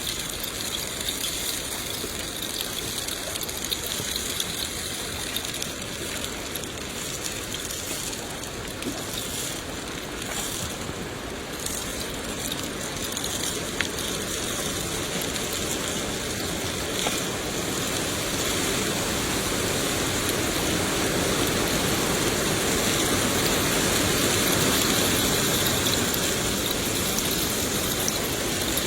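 Steady rain falling, an even hiss, growing somewhat louder and fuller in the second half.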